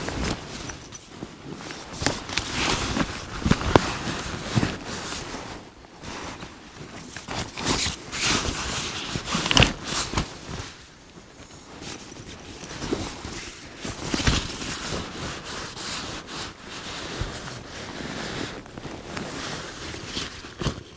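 Rustling, scraping and handling noises of camping gear being packed into a rucksack by hand, coming in irregular spells with a few sharp clicks.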